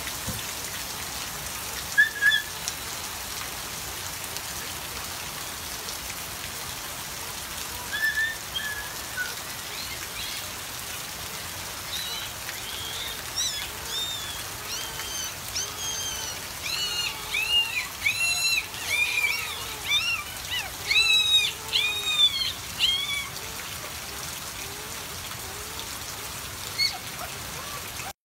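Steady hiss of rain falling, with short, high, rising-and-falling whining cries of newborn puppies: single cries a couple of times early on, then a dense run of them for about ten seconds from the middle, and one more near the end.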